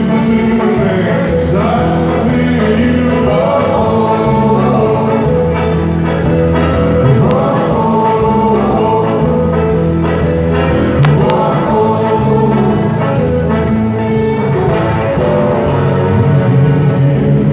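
Live band with electric guitars playing, with a male lead vocalist singing over the loud concert PA.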